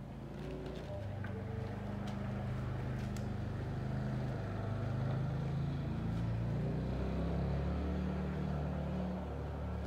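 A motor vehicle engine running, growing louder about a second in and then holding with its pitch wavering up and down. A few light clicks come in the first few seconds.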